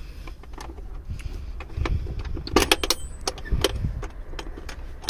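Clicks, knocks and metallic rattles of a Maruti Suzuki Eeco van's driver's seat being unlatched and lifted to get at the engine underneath. The loudest run of sharp clicks comes about two and a half seconds in.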